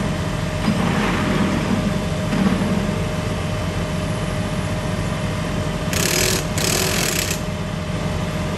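Engines of utility bucket trucks running steadily, a low fast-pulsing drone with a faint steady hum above it. About six and seven seconds in come two short bursts of hiss.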